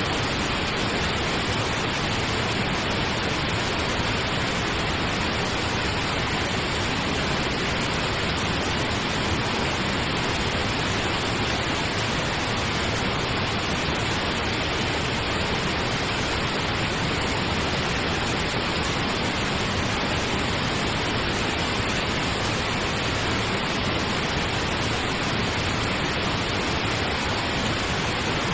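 Steady pink noise played as a sleep sound, an even hiss without breaks or changes.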